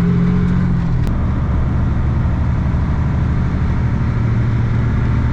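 Semi truck's diesel engine running steadily, heard from inside the cab. Its note changes about a second in, and a single sharp click comes at the same moment.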